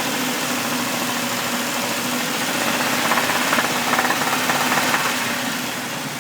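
2000 Jeep Cherokee XJ engine running steadily with a rapid, even knock coming from the motor. It is a newly developed knock whose cause is not yet known.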